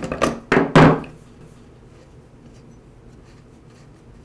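Socket wrench breaking a spark plug loose from a small two-stroke trimmer engine, with a short burst of loud clicking in the first second. Faint scraping and ticking follow as the plug is unscrewed by hand.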